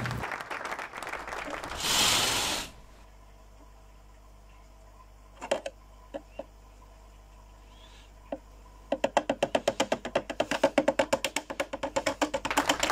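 Fast, even percussive clicking, about six clicks a second, starts about nine seconds in and has a musical beat. Before it comes a quiet stretch with a few single clicks, and near the start a short loud burst of noise.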